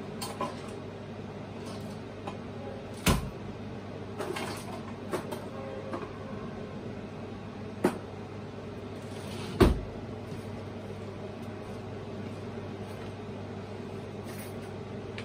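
A few sharp knocks and clicks over a steady low hum, the loudest knock about ten seconds in.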